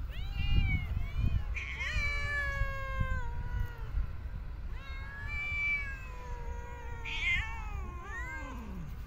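Cats meowing: about four long, drawn-out meows one after another, several sliding down in pitch, the longest close to two seconds.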